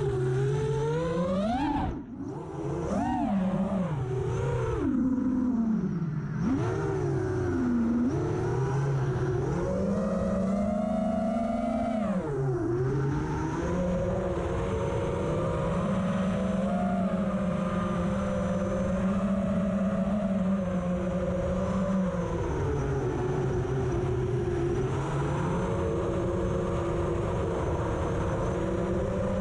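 FPV quadcopter's electric motors whining. Over the first dozen seconds the pitch swoops up and down sharply with the throttle, then it settles into a fairly steady drone with small dips.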